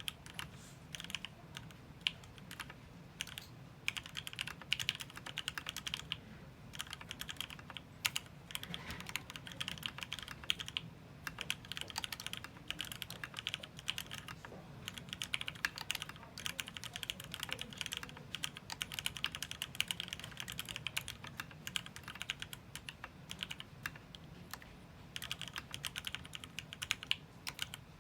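Continuous typing on a mechanical keyboard with lubed Gateron Ink Black linear switches, aluminium plate, PBT keycaps and no sound dampening: a dense, uneven patter of keystrokes with a few brief pauses.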